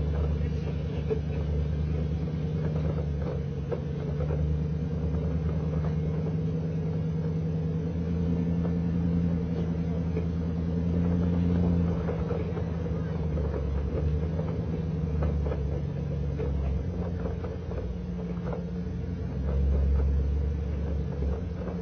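Pickup truck's engine running at low speed under load while towing a trailer, a steady low hum that swells briefly twice, with scattered knocks and rattles throughout.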